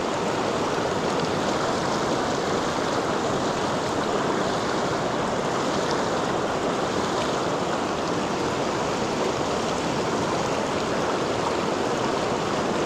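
Mountain stream's water rushing steadily.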